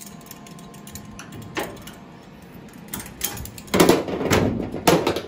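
Husky locking pliers (vise grips) being unclamped from a freshly tack-welded sheet-metal panel: a series of sharp metallic snaps and clanks, the loudest cluster about four seconds in and another just before five seconds.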